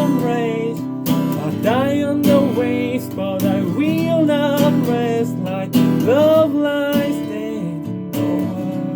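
The song's strummed acoustic guitar chords playing on, with a melody that slides between notes above them, sung without recognisable words.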